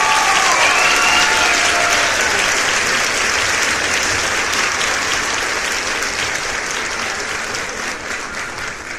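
Crowd applause, many hands clapping in a dense patter, with a few voices cheering at the start, slowly fading toward the end.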